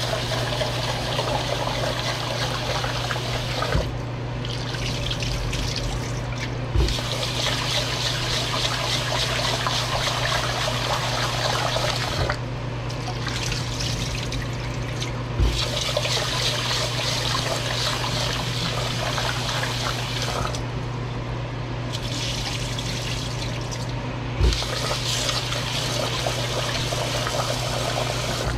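Kitchen faucet running into a rice cooker pot as rice is swirled and rinsed by hand, the cloudy rinse water splashing out into a stainless steel sink. The splashing drops away three times for a few seconds, a few soft knocks stand out, and a steady low hum runs underneath.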